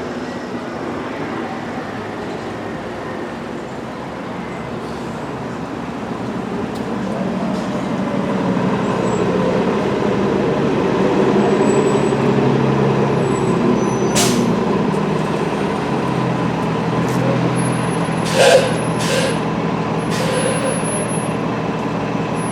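Road traffic: a heavy vehicle's engine swells and eases off over several seconds, with a few short sharp hisses about two-thirds of the way in.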